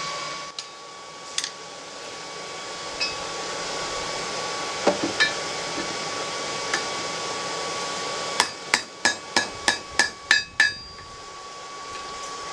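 Hand hammer striking the hot jaws of a pair of blacksmith's tongs on a steel anvil, working the jaws down narrower. A few scattered taps come first, then a quick run of about nine ringing blows, around four a second, a little past the middle. A steady whine runs underneath.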